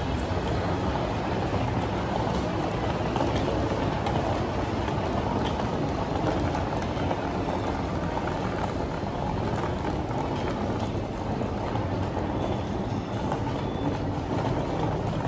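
Steady low rumbling background noise of a large indoor space, with no distinct events.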